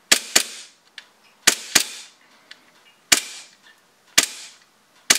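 Tokyo Marui Hi-Capa gas blowback airsoft pistol firing, each shot a sharp crack as the slide cycles: two quick double taps, then three single shots about a second apart.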